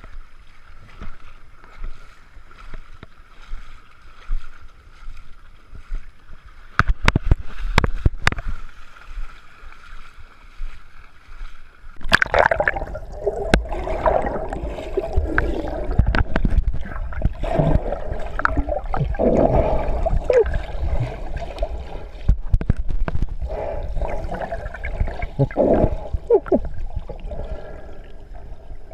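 Lake water lapping and sloshing around a camera at the surface, with a few sharp knocks about seven seconds in. From about twelve seconds in the camera is underwater, and the sound turns to muffled bubbling and gurgling as a person moves through the water.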